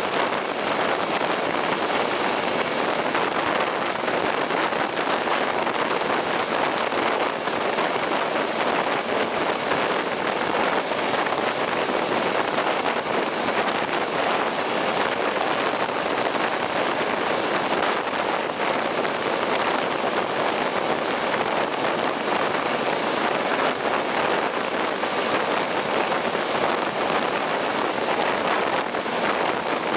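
Regional train running through a tunnel, heard at an open window: a steady rush of wheel and air noise, with wind buffeting the microphone.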